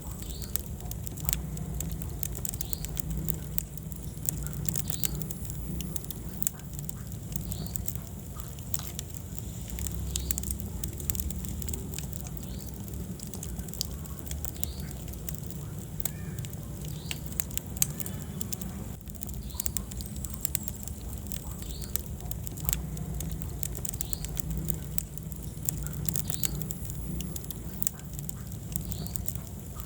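Wood fire in a fireplace crackling, with frequent irregular sharp pops and snaps over a low steady rumble of the flames.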